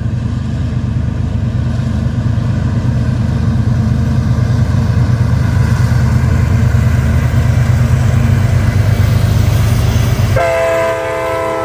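Heavy low rumble of passing CSX diesel freight locomotives, with a faint sustained horn above it. About ten seconds in, the rumble drops away suddenly and a locomotive air horn sounds a loud, steady multi-note chord.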